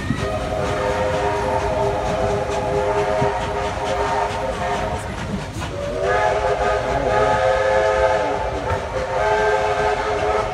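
Steam locomotive's chime whistle blowing three blasts, several notes at once: a long blast of about five seconds, a second that swoops up in pitch as it starts, and a short third near the end. Under it runs the rumble and hiss of the departing steam train.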